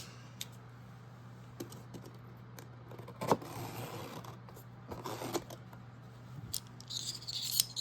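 A knife cutting open a shipping package: scattered clicks and handling, with two longer slicing scrapes about three and five seconds in and packaging rustling near the end, over a steady low hum.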